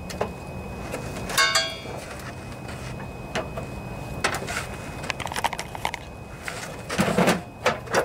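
Handling noises from a riding mower's plastic hood and its wiring: a brief squeak about a second and a half in, scattered clicks and rattles, and a louder knock around seven seconds in as the hood is lowered and handled, with its wiring being unplugged.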